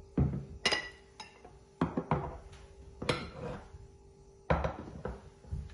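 Ceramic dishes knocking and clinking as plates of chopped vegetables are picked up off the counter: about eight sharp, irregularly spaced knocks, several with a brief ringing clink.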